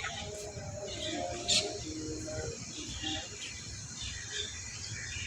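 Birds calling at dawn: a mix of short low-pitched calls and scattered high chirps, with one sharper chirp about a second and a half in, over a steady low rumble.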